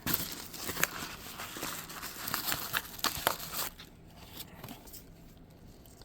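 Packaging being unwrapped by hand: paper or plastic crinkling and rustling with sharp crackles, dying down after about three and a half seconds to a few light ticks.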